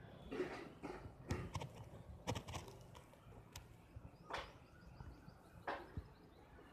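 Soft, scattered rustles and taps close to the microphone over a faint outdoor background.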